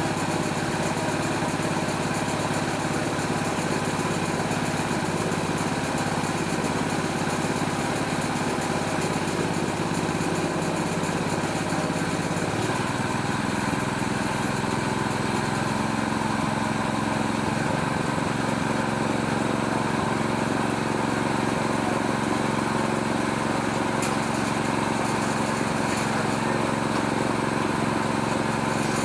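Small Robin-type petrol engine running steadily, driving a homemade oil palm fruit stripping machine. About twelve seconds in, its note shifts slightly higher and then holds steady.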